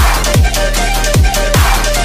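Background electronic music with a fast, steady beat of deep kick drums that drop in pitch, about two or three a second.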